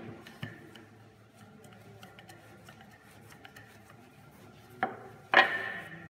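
Wooden rolling pin rolling over a floured slab of butter kneaded with flour on a granite counter: a faint rubbing with small ticks. Near the end come two sharp knocks, the second the loudest.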